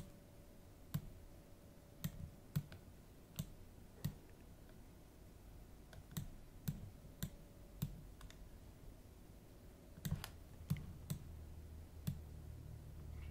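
Computer mouse and keyboard clicks while editing: about fourteen sharp, irregularly spaced clicks, some in quick pairs, with short pauses between groups. A faint low hum comes in near the end.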